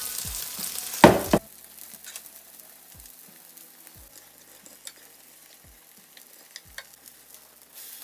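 Cabbage and carrot patties sizzling in oil in a grill pan over high heat. The sizzle surges loudly about a second in, drops off quickly to a quieter hiss with scattered light utensil taps, and rises again near the end as a patty is flipped.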